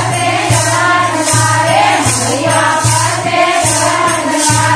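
Group of women singing a Marwari devotional bhajan together, over a steady beat of a little more than one a second, each beat a low thump with a jingle of hand clappers.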